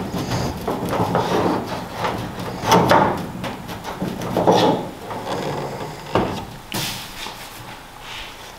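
Sheet-steel edge of a 1971 Camaro's rear body panel being bent by hand with a tool to match the quarter panel's contour: irregular metal scrapes and clicks, with two sharp knocks about six and seven seconds in, then quieter.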